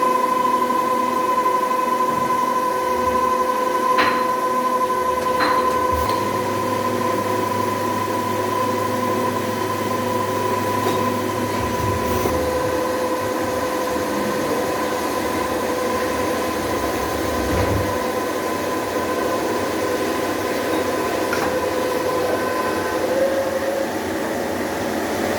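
CNC machine running with a steady high whine over a mechanical noise, with two sharp clicks about four and five and a half seconds in. The whine drops away shortly before the end.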